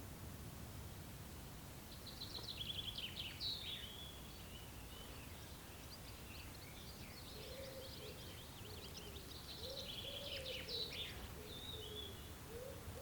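Forest ambience: a songbird singing bursts of quick, high notes and trills from about two seconds in, over a steady low background rumble. From about halfway through, a fainter, lower wavering call joins in.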